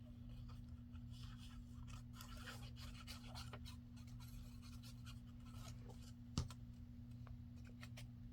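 Faint rustling and scratching of paper being handled and rubbed, with one sharp tap about six seconds in and a couple of light clicks near the end.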